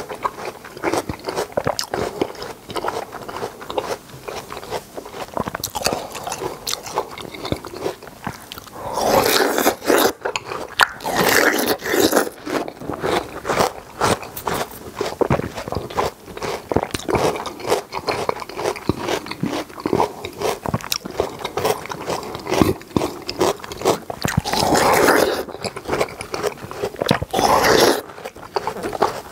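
A person biting into and chewing juicy watermelon flesh: continuous wet, crunchy bites and chewing, with a few louder, longer stretches around nine to twelve seconds in and again near the end.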